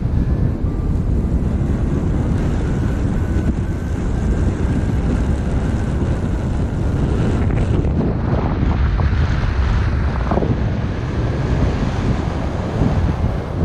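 Strong wind buffeting the microphone in a steady rumble, with a faint thin high tone in the first half.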